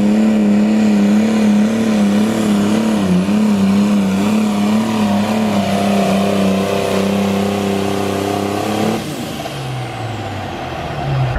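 Pulling tractor's turbocharged diesel engine running flat out under load, its pitch wavering up and down. It cuts back sharply about nine seconds in, leaving a high whine that slides down in pitch.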